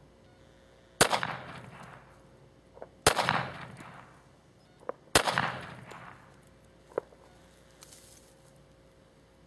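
Three shots from a Colt 1911 .45 ACP pistol, about two seconds apart, each trailing off in a long echo. A faint sharp crack follows each shot about two seconds later.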